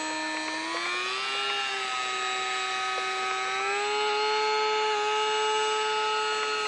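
Ultra micro RC flying boat's small electric motor and propeller whining steadily. Its pitch rises a little about a second in and again near four seconds.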